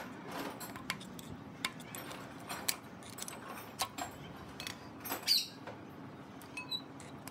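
Scattered light metallic clicks and clinks, at first from a thin steel tool probing the broken wheel bearing inside a three-wheeler's axle housing. A louder short metallic scrape with a brief ring comes about five seconds in.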